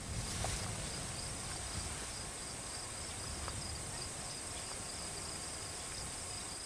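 Crickets chirring steadily in two thin, continuous high-pitched tones over a low background rumble.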